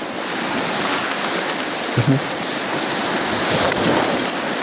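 Steady rushing outdoor noise of wind and lapping lake water, with a brief low thump about two seconds in.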